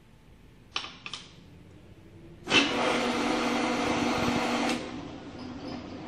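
Acrylic automatic bending machine: two short clicks, then its motor runs loudly and steadily for about two seconds before dropping to a quieter steady hum.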